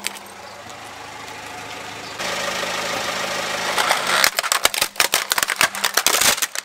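Car engine running at a low steady idle while its tyre rolls onto a plastic toy fire truck; from about four seconds in, a rapid run of sharp cracks and snaps as the plastic body breaks under the tyre.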